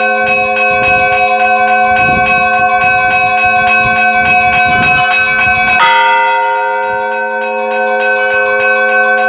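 Russian church bells ringing (kolokolny zvon): several bells sound together, small bells struck in a fast continuous rhythm over long ringing tones, with one louder strike about six seconds in.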